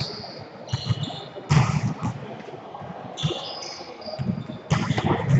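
Volleyball struck hard twice during a rally, about a second and a half in and again near the end, with short high squeaks of shoes on the court floor in between.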